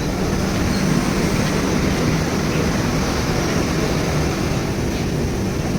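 Steady rumble and hiss of the Howrah Mail passenger train, even in level throughout, with no distinct clicks or knocks.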